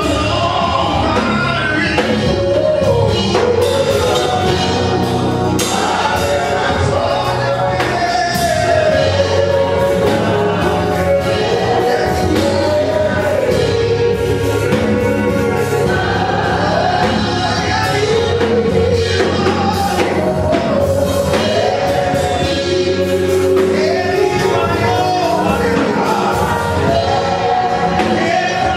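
A live gospel praise song: women singing a melody into microphones over a drum kit and a steady bass line, played through the hall's speakers.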